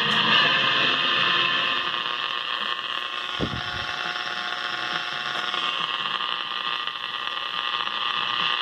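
Static hiss and buzz from the speaker of a 1950s Bulova Fidelity 300 All American Five AM tube radio tuned off-station. The owner blames much of the noise on interference from fluorescent lights in the room. A brief low thump comes about three and a half seconds in.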